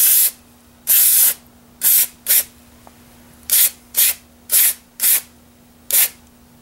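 Aerosol spray cleaner hissing in about nine short bursts, the first few longer and the later ones quicker, blasting crud out of a rifle receiver.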